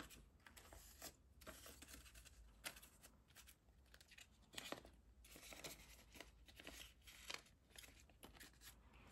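Faint rustling and crinkling of paper banknotes and clear plastic binder envelopes being handled, a run of soft, irregular rustles and light clicks.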